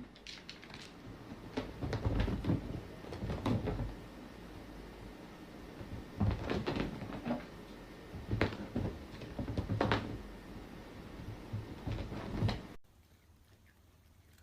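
Irregular knocking and banging, like a cupboard or door being knocked about, stopping abruptly about thirteen seconds in.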